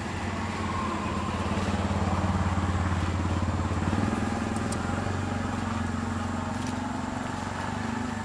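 A vehicle engine running with a steady low hum, swelling over the first few seconds and then easing off.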